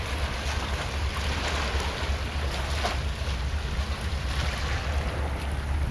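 Wind blowing on the microphone as a steady low rumble, over a continuous hiss of seawater washing around the breakwater and sluice gate.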